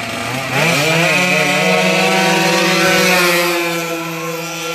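Two-stroke Honda Dio racing scooter engines at full throttle: the engine note climbs sharply about half a second in as they launch, then holds at high revs down the strip, easing slightly near the end.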